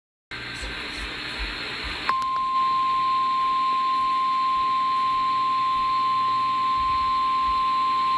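Emergency Alert System attention tone received over AM radio: after about two seconds of radio hiss, a single steady tone a little above 1 kHz starts and holds unbroken, announcing a severe thunderstorm warning.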